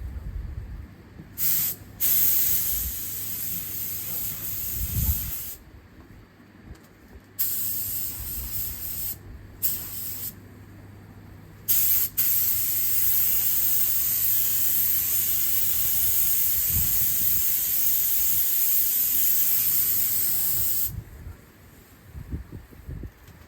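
Paint spray gun hissing as it is triggered in several short bursts, then held for one long steady pass of about nine seconds that cuts off sharply.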